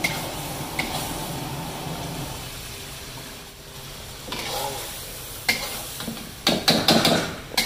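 Chicken in green masala sizzling in oil in a steel karahi wok while a metal spatula stirs it, scraping and clinking against the pan. Several sharp clinks come close together in the second half.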